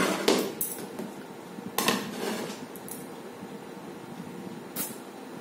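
Tableware clattering as ceramic plates, paper ice cream cups and spoons are handled on a table: a loud cluster of clinks right at the start, another around two seconds in, and a short one near the end.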